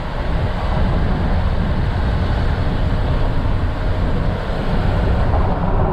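Steady wind and road noise of a pickup truck driving at speed, heard from inside the cab with the side window beside the microphone.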